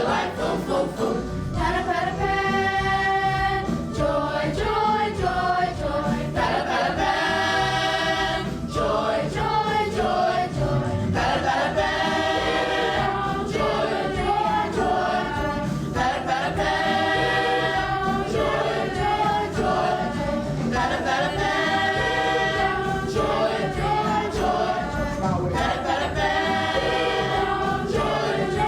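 Middle school chorus singing an upbeat song together, its phrases repeating about every five seconds.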